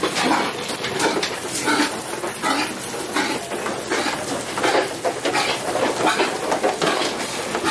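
Irregular metallic clattering and knocking from pigs moving inside an aluminium livestock trailer, mixed with the pigs' own noises.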